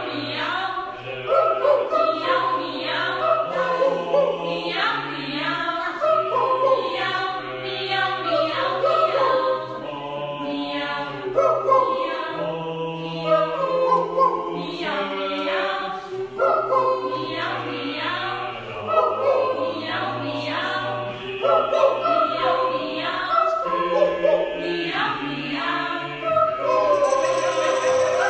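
Mixed youth choir singing in parts, the voices moving together in chords. About 27 seconds in, the sound turns brighter and fuller, as from a different recording.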